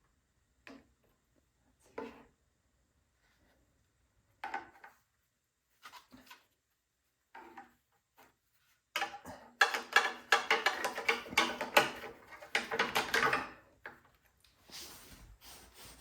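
Scattered light clicks and knocks of parts being handled during hands-on assembly work, then, about nine seconds in, roughly four seconds of a much louder rattling with ringing tones before it drops back to faint handling sounds.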